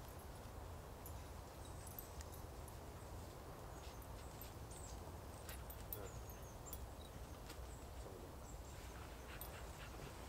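Faint outdoor ambience: a steady low rumble with scattered light clicks and rustles from people moving on a pine-needle forest floor and sitting into a hammock, plus a few very short high chirps.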